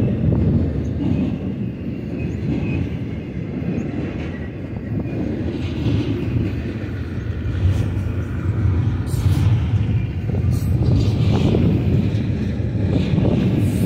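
Double-stack intermodal freight cars rolling past: a steady low rumble of steel wheels on rail, with a few short knocks in the second half.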